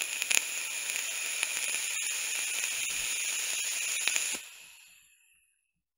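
Vape atomizer coil in a SMOK tank firing and sizzling as it vaporises e-liquid: a steady hiss with scattered crackles that stops about four seconds in and dies away over the next second.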